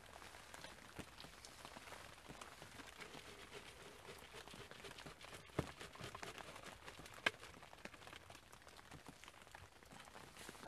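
Light rain pattering faintly on the fabric of a fishing shelter, a steady hiss with many small scattered ticks and two sharper clicks around the middle.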